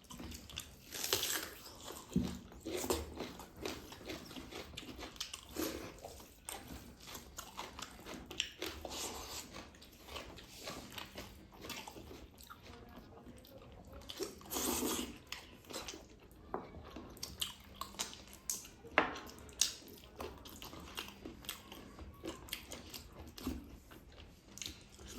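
Close-up sounds of people eating a rice meal by hand: chewing and smacking, small clicks of food and fingers against plates, with a few louder scrapes and crunches scattered through.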